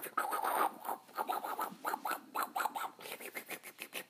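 A pet licking and eating from a small dish close to the microphone: a run of short scratchy strokes, several a second, that thin out and fade near the end.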